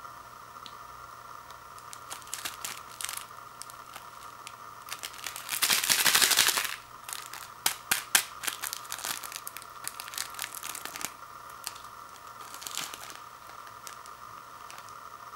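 Small clear plastic packet of dried vegetables crinkling in the hands and torn open: a loud rip lasting about a second near the middle, then crackling of the plastic, with another short crinkle later.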